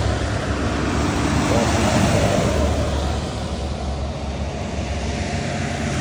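Buses in a procession going past: steady engine rumble and road noise, easing slightly about three to five seconds in.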